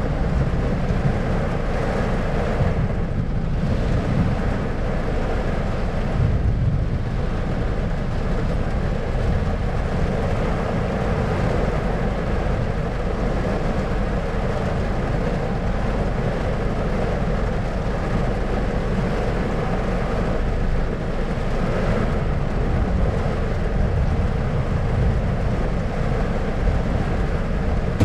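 Thunderstorm ambience: a steady, dense low rumble with a hiss over it, with no single sharp clap standing out.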